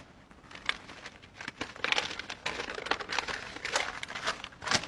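Paper rustling and crinkling with many irregular light taps, getting busier after the first couple of seconds, as papers are handled on a table.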